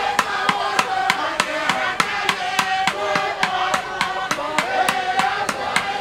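Polynesian group dance song: many voices singing and shouting together over a steady, sharp percussion beat of about three strokes a second.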